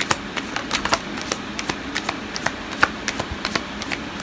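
Tarot cards being shuffled and handled: a run of light, irregular clicks and taps, several each second.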